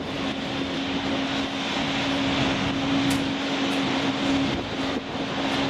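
Steady jet aircraft noise at an airport, heard from inside the terminal: an even rushing drone with a constant low hum.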